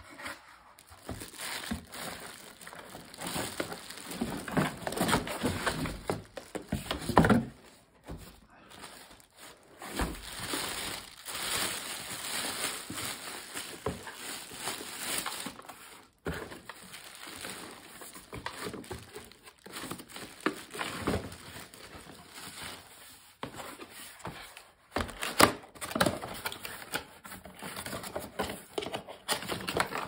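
Plastic wrapping crinkling and cardboard and moulded-pulp packaging rustling and scraping as it is handled, in irregular bursts. There are a few louder knocks, one about seven seconds in and a couple near the end.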